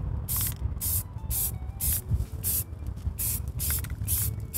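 Aerosol can of Rust-Oleum spray paint hissing in short bursts, about two a second, as a coat is sprayed on in quick passes.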